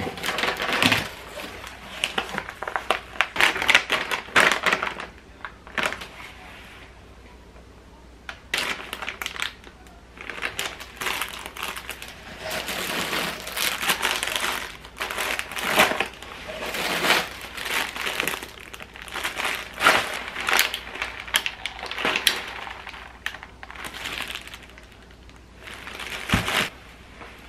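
Plastic produce bags crinkling and rustling in irregular bursts as groceries are handled and lifted out of a box, with a short lull partway through and a soft knock near the end.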